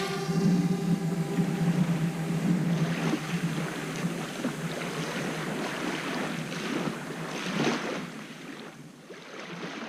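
A DJI Mavic Air drone's propellers hum steadily at first, then the hum drops away into a rushing wind-and-surf noise that fades out near the end.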